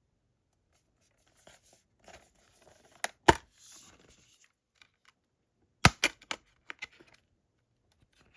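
A SteelBook disc case being handled and opened: soft rustling and scraping with several sharp clicks and snaps, the loudest about three seconds in and again about six seconds in.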